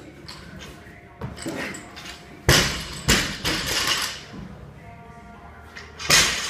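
Loaded barbell with rubber bumper plates dropped onto rubber gym flooring: a loud crash about two and a half seconds in, a second hit about half a second later as it bounces, then rattling as it settles. Near the end comes another loud clatter.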